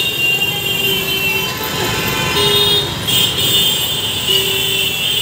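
Jammed city road traffic: a steady din of engines and tyres, with vehicle horns tooting several times.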